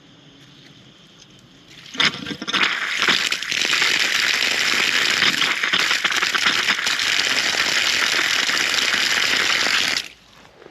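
Trapped air and then water spluttering out of a freshly opened valve on a water pipe fed by an IBC tank: a loud hissing gush with crackles that starts about two seconds in and cuts off suddenly near the end, as the line is bled of air.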